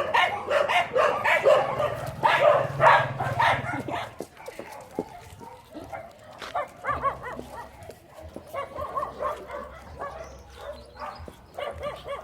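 Several dogs barking repeatedly, loud and close together for the first few seconds, then fewer and fainter barks.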